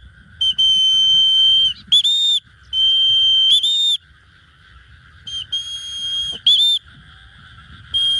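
Loud whistle calls to bring a trained white-breasted woodswallow back to its handler. There are three phrases and a fourth starting near the end; each is a long, steady high note that ends in one or two short rising-and-falling notes.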